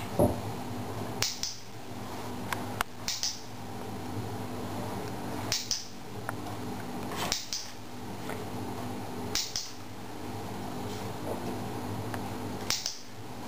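Dog-training clicker clicked six times at irregular intervals of about two seconds, each a crisp double click of press and release. The clicks mark the moments the puppy holds the wanted position, each followed by a treat. A dull thump right at the start, over a steady low room hum.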